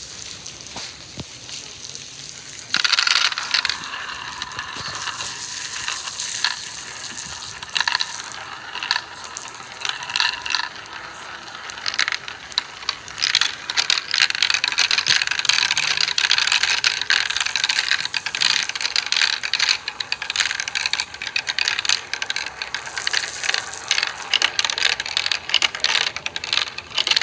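Marbles rolling and clattering along a marble-run track: a dense stream of rapid clicks and rattles that starts suddenly about three seconds in and keeps going.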